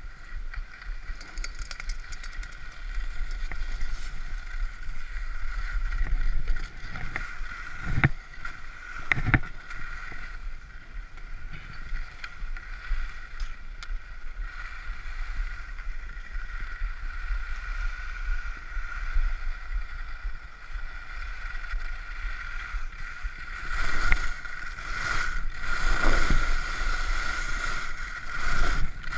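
Skis sliding and scraping over groomed snow, with wind rushing over the camera, while towed uphill on a ski lift and then skiing down. A steady high whine runs through it, with a few louder whooshes.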